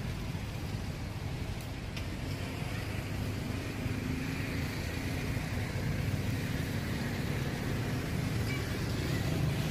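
Steady low outdoor rumble with no distinct events, slightly louder toward the end.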